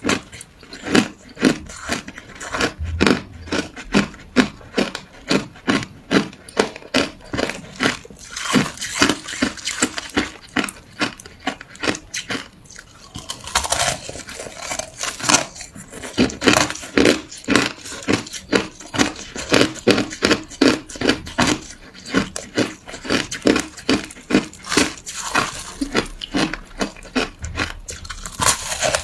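Ice being bitten and crunched between the teeth, a close run of sharp crunches a few per second, with a short pause about halfway through.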